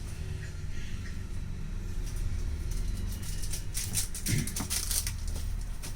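A steady low hum, joined from about halfway on by a quick run of small clicks and taps: small tools and parts being handled on a repair bench.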